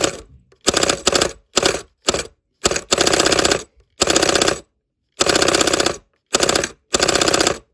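Solenoid pusher of a select-fire Nerf Stryfe cycling on full auto: a rapid mechanical clatter in about ten short bursts, each under a second, with brief silences between.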